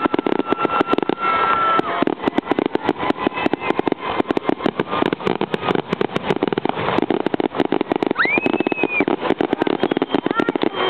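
Firework fountain spraying sparks with a dense, irregular crackle of many small pops a second. A short whistle rises and holds about eight seconds in.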